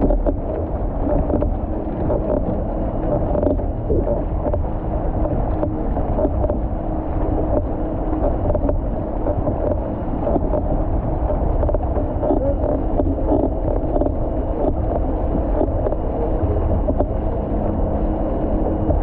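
Water rushing and splashing along an outrigger canoe's hull as it is paddled through a motorboat's wake, with wind buffeting the microphone and the steady drone of the motorboat's engine ahead.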